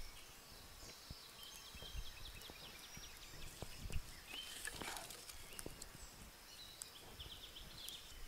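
Small wood campfire crackling while dry sticks are gathered from a forest floor of pine needles and laid on it, with scattered knocks and snaps of wood and a louder bump about four seconds in.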